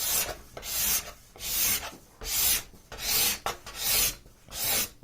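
Steel card scraper drawn in repeated strokes across a veneered table top, scraping off old varnish: a rasping scrape on each pull, about seven strokes at an even pace of a little more than one a second.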